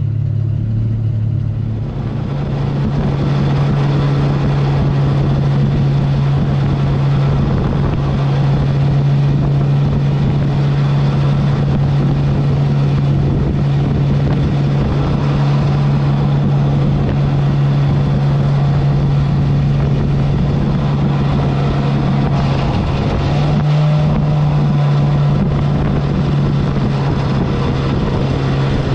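Mini jet boat's engine throttling up from idle about two seconds in, then running steadily at planing speed, close to 30 mph, over a haze of rushing water. The engine note steps up slightly once more late on.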